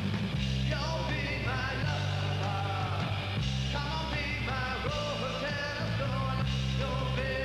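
Rock and roll music with singing over a steady bass line.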